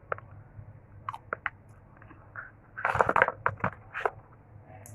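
Close-miked eating sounds: chewing with wet mouth clicks and smacks, with a denser, louder bout about three seconds in.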